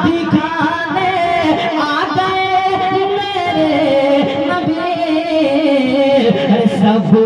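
A man singing a naat, a devotional Urdu poem, solo into a microphone and amplified through a PA, with long held notes that bend and glide in pitch.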